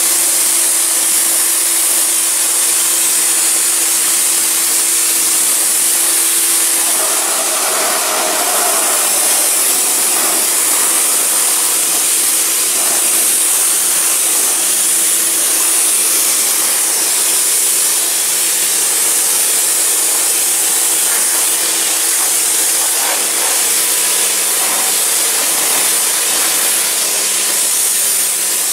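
Kärcher K2 electric pressure washer running, its high-pressure water jet hissing steadily as it sprays plastic garden chairs, over the steady hum of the pump motor.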